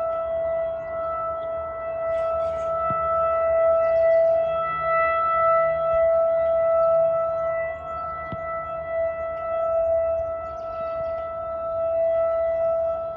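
Outdoor warning siren sounding a steady tone for a monthly test. Its level swells and fades every few seconds as the rotating siren sweeps toward and away.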